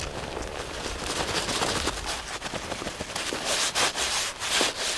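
Boots crunching and scuffing through snow, with clothing and pack rustling, as someone climbs on foot. The crunches come unevenly and are loudest near the end.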